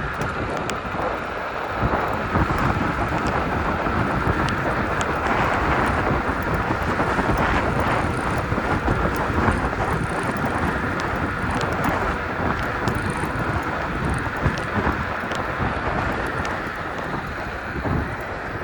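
Wind buffeting the microphone and road noise from a KuKirin G2 electric scooter riding at speed, with frequent small clicks and rattles.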